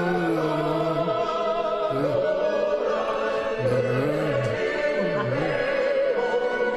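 Operatic classical music: sung voices with vibrato over orchestral accompaniment.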